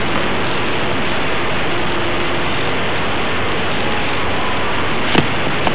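Steady hiss of background noise from an old camcorder recording, with two short clicks near the end.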